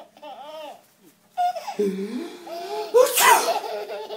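A man's sneeze about three seconds in: a drawn-out vocal build-up, then one sharp, loud burst. A baby laughs just before and just after it.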